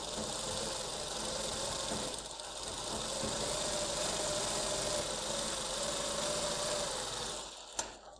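Electric sewing machine running steadily, stitching a printed trim border onto fabric, with a steady hum; it stops shortly before the end, followed by a few light clicks.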